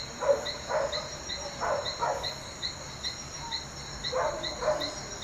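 Crickets chirping about three times a second over a steady high insect drone. Louder short calls come in groups of two or three, the loudest sounds, with a gap in the middle.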